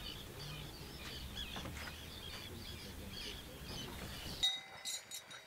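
Wild birds calling, a dense run of short chirps and twitters. About four and a half seconds in, the sound cuts to a cowbell ringing.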